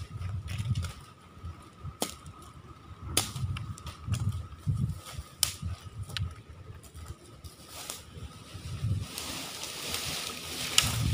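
Dry branches being broken and hacked for firewood with a bolo knife: a handful of sharp, separate cracks over low, irregular rumbling.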